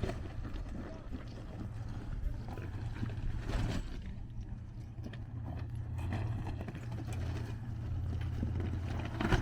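Off-road 4x4 truck engine running at a low steady idle as it creeps down a steep rocky trail on the brakes, with scattered knocks and crunches of tyres over rock.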